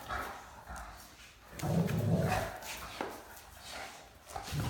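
Great Danes play-wrestling: low growly dog vocalizations, loudest in a burst about two seconds in, with a few scuffling knocks.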